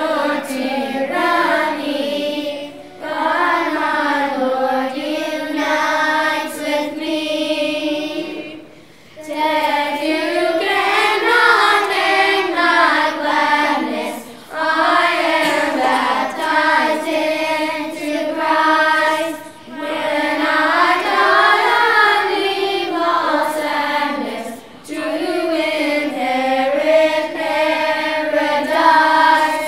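Children's choir singing a hymn in phrases of about five seconds, with a short breath between phrases.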